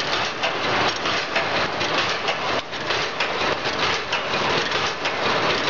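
Automatic wire mesh fence panel welding machine running: a dense, continuous mechanical clatter of rapid knocks.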